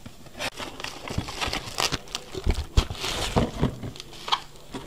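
Cardboard shipping box being opened by hand and bubble-wrap packaging pulled out: irregular crinkling and rustling with a few light knocks against the box.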